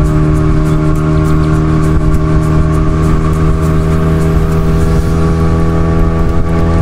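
Speedboat outboard motor running steadily at a constant pitch, loud, with water and wind noise over it.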